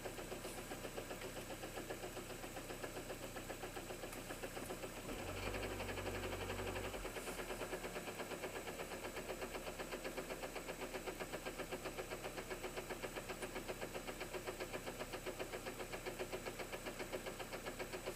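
Citroën C4 (second generation) engine running cold, with a regular knock about three times a second: a strange knock that shows up on a cold start. About five seconds in, a deeper low hum joins for a couple of seconds.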